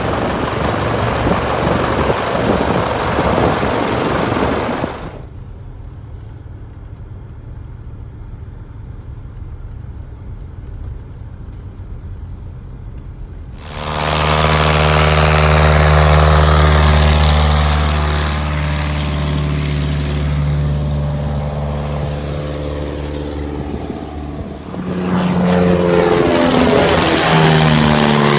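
Light aircraft piston engine and propeller running: for the first five seconds a loud roar close to the propeller, then a quieter steady hum. About 14 seconds in it comes back loud at high power, its pitch slowly sliding down as the aircraft passes. About 25 seconds in it returns loud again as the aircraft flies low overhead, its pitch bending up and down.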